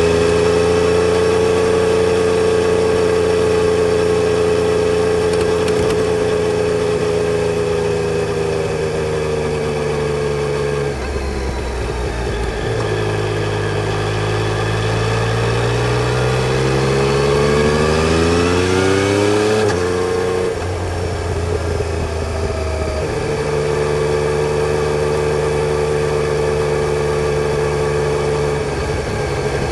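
Yamaha Tracer 900 GT's three-cylinder engine heard while riding: a steady cruising note for about ten seconds, then it eases off, pulls up through the revs with a steadily rising pitch, drops sharply at a gear change, and settles back to a steady cruise.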